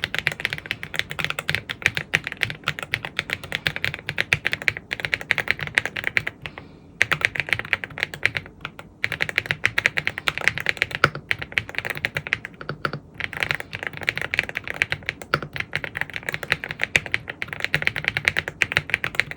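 Fast continuous typing on a Rainy75 mechanical keyboard with WOB switches, a dense run of keystroke clicks with a couple of brief pauses partway through.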